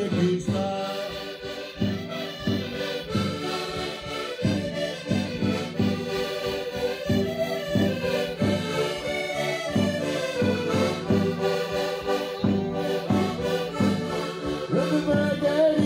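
Several Portuguese concertinas (diatonic button accordions) playing a folk tune together in an instrumental passage, sustained reed chords over a steady rhythmic bass-and-chord pulse.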